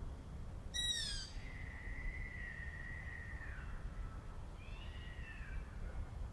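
Owl calling: a harsh call about a second in drops into a long steady whistle held for about two seconds, which then falls away. A shorter falling call follows near the end, over a low background rumble.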